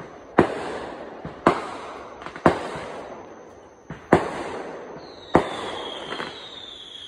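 Fireworks going off: five loud sharp bangs about a second apart, each trailing off in an echo, with a few fainter pops between. From about five seconds in, a high whistle slides slowly down in pitch.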